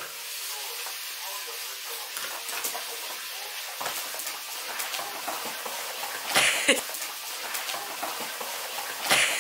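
Border collies tussling over a chew toy on a rug: scuffling and small scrapes, with two louder rustling bursts about six and a half and nine seconds in, over a steady hiss.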